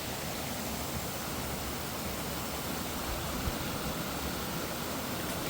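Steady rushing of flowing creek water, an even hiss with a fluctuating low rumble beneath it.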